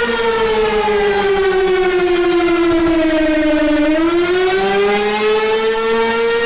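Civil-defense-style warning siren sounding a loud, steady note. Its pitch slowly sinks for about four seconds, then climbs back up over the next two.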